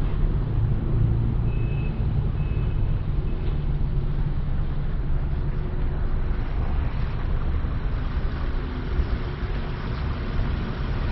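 Car running, heard from inside the cabin: a steady low rumble of engine and road noise.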